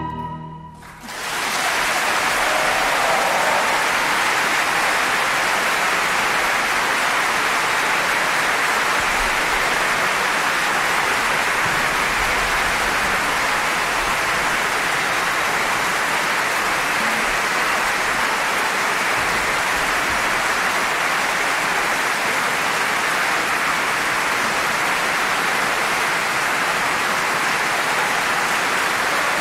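Large audience applauding steadily, breaking out about a second in as the orchestra's final note dies away.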